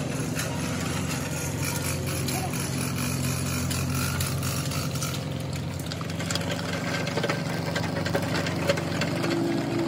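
A steady machine hum, like an engine running, with scattered light clicks and taps over it.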